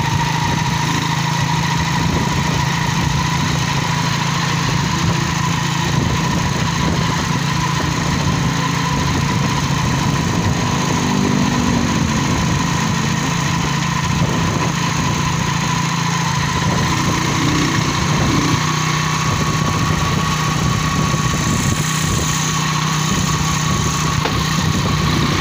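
A vehicle's engine running steadily, heard from on board while riding slowly along the road: an even drone that holds the same pitch and level throughout.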